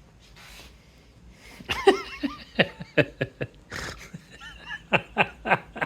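A man laughing in a run of short chuckles, starting about a second and a half in.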